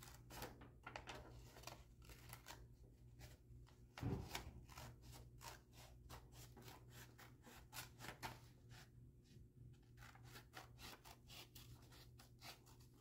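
Scissors cutting through a sheet of paper, faint, in a long irregular run of short snips. A soft thump comes about four seconds in.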